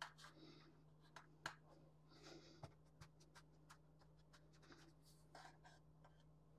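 Faint rustling and soft scratching of fingers patting and pressing crushed Oreo cookie crumbs into a metal baking pan, with a few light clicks, over a steady low hum.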